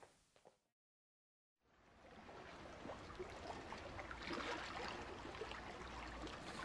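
A second of dead silence, then running, trickling water fades in and builds steadily, with small clicks through it.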